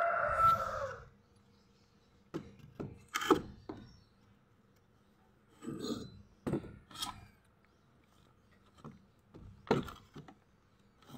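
A rooster crows, ending about a second in; after that come scattered knocks and light clatter as an inverter welder's circuit board is handled and turned over.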